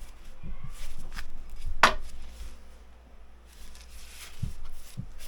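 Knocks from the axe and its wooden handle being handled: light taps, one sharp crack about two seconds in, and two dull thumps near the end.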